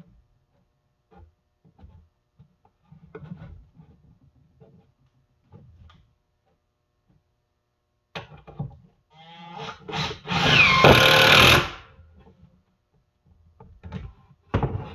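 Cordless drill driving a screw into a wooden frame: a few short bursts, then one steady run of about a second and a half around ten seconds in. Light handling clicks before it and a thump near the end.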